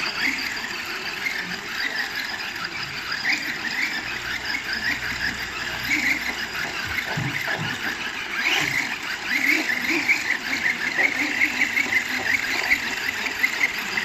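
Small electric RC monster truck driving and spinning on smooth tiles: high motor whine with fluttering tyre squeal, going on throughout.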